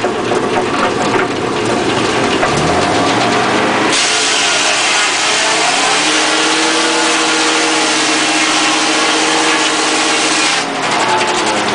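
Home-built circular sawmill running: the drive rises in pitch about two and a half seconds in. At about four seconds the circular blade bites into the log and rips through it, a loud, hissing cut over a steady hum, until the blade clears the log shortly before the end.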